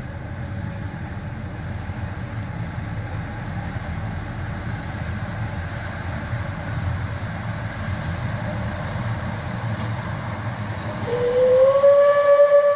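Narrow-gauge steam locomotive approaching unseen through a tunnel, a low rumble slowly growing louder. About eleven seconds in its steam whistle sounds, sliding up briefly in pitch and then held steady.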